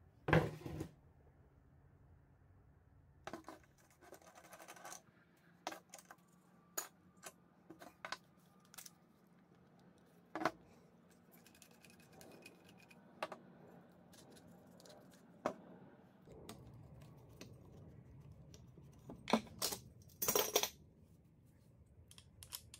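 Scattered clicks and metallic clinks of a cordless angle grinder being handled and taken apart: side handle, guard and flange parts knocking against each other and on a wooden bench. The loudest knocks come just after the start and again near the end.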